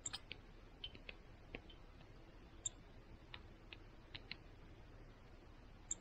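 A nuthatch pecking at a fat ball inside a wire-cage feeder: faint, irregular light taps and clicks, about a dozen, with three short, very high pips among them.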